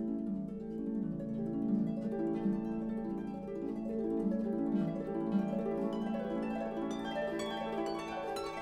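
Background music of plucked string notes in quick, rippling runs.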